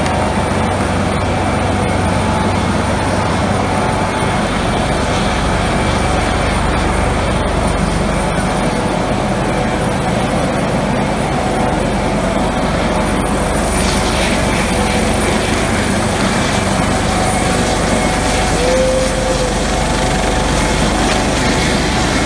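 Coast Guard MH-65 Dolphin helicopter running on the ramp, its turbines and rotor making a loud, steady noise with a faint high whine held through it.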